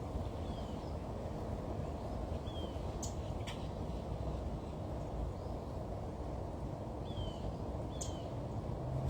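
Birds chirping now and then, short falling chirps, over a steady low rumble, with a few sharp clicks.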